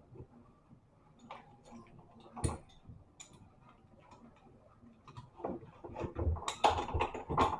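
Scattered sharp clicks and knocks of tools and metal parts being handled while a washing-machine motor is fitted, with a louder run of clattering near the end.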